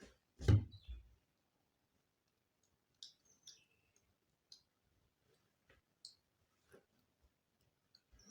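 A dull thump about half a second in, then scattered faint, sharp clicks every second or so.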